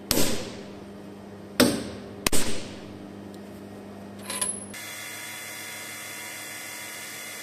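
Three knocks as an aluminium plate is clamped and tapped down with a mallet in a milling machine vise to seat it. About four and a half seconds in, the milling machine's spindle starts and runs steadily.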